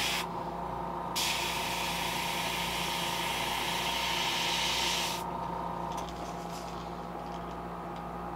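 Airbrush hissing as it sprays paint onto a fishing lure. A brief burst stops almost at once, then after a pause of about a second comes a steady spray of about four seconds that stops about five seconds in, all over a faint steady hum.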